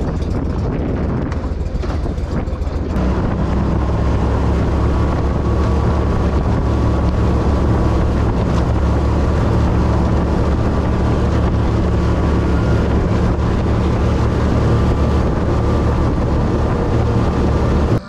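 Outboard motor running steadily as a small aluminum fishing boat travels on the river, with wind buffeting the microphone and water rushing past the hull. The engine note settles into an even pitch about three seconds in.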